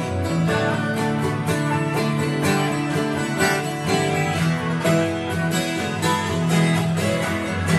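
Acoustic guitar being played along with a full band's concert recording, which plays from the TV, in a steady instrumental passage.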